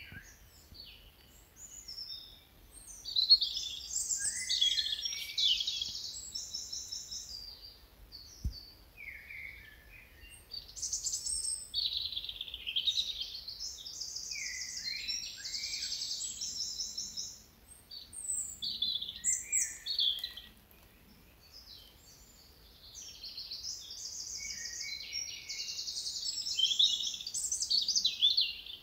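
Songbirds singing in repeated phrases of rapid, high trills and chirps, in three bouts separated by quieter gaps.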